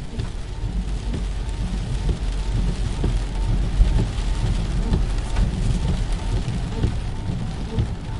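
Steady rain falling on a hard surface, many small drop hits over a low rumble.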